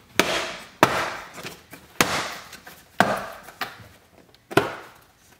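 Plastic retaining clips of a Honda Civic's dashboard end cap snapping loose as the trim panel is pulled off. About five sharp snaps come roughly a second apart, each with a short fading tail.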